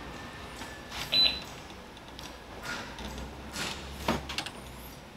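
A Racing Boy 77 rubber handle grip being pushed and twisted onto a scooter's throttle tube, rubber rubbing on the tube in a few short strokes. The loudest, about a second in, ends in a brief high squeak.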